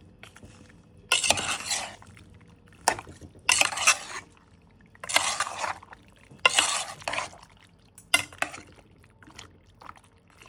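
A spoon stirring mutton soup in a cooking pot: a series of scraping strokes against the pot with sharp clinks, one every one to two seconds.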